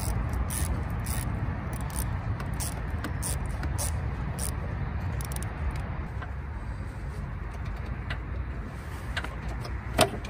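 Light, irregular clicks and knocks from hands handling the air intake hose and its fittings in a car's engine bay, over a steady low outdoor rumble; a sharper knock comes near the end.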